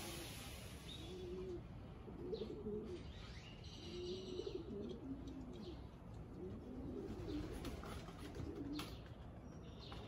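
Domestic pigeons cooing, a string of low warbling coos one after another, with faint chirps of other birds higher up.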